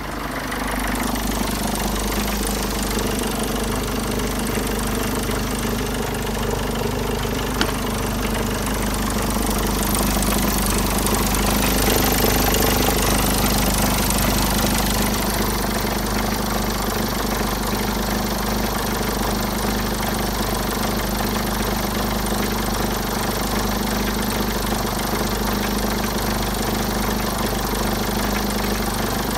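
Mercedes OM611 2.2 CDI four-cylinder common-rail diesel idling steadily in a W210, louder for a few seconds around the middle.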